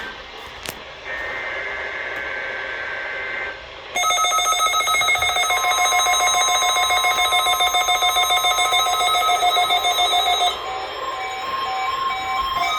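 NOAA weather radio receivers picking up a Required Weekly Test. About a second in there is a rasping two-tone data burst of the SAME header. From about four seconds in several radios' alarms go off together in rapid pulsing electronic beeps, with a steady tone joining shortly after. About ten and a half seconds in, one alarm drops out and the beeping changes pattern.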